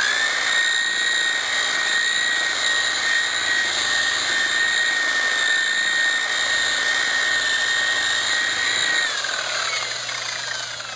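Electric rotary polisher with a bonnet pad buffing car clear coat: its motor comes up to speed at the start and runs with a steady high whine. Near the end it is switched off and winds down, the whine falling in pitch and fading.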